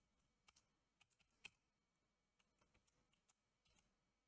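Very faint computer keyboard keystrokes over near silence: a dozen or so irregular, scattered clicks, one louder about one and a half seconds in.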